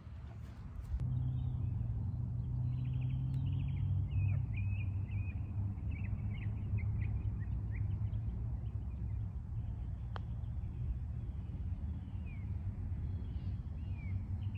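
Small birds chirping in many short, quick high calls over a steady low rumble. A single sharp tap about ten seconds in, a putter striking a golf ball.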